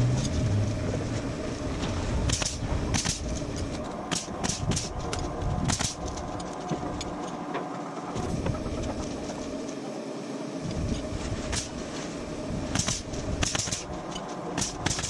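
Scattered sharp knocks and clatters of truss lumber being handled, over a steady mechanical drone.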